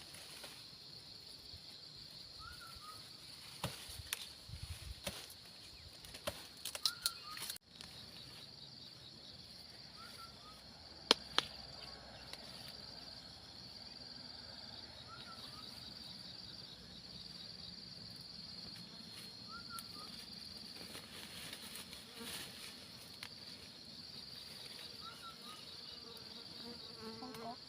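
Insects chirring in a steady high pulse, with a bird giving a short rising call every few seconds. A few soft knocks come in the first third, and one sharp click comes about eleven seconds in.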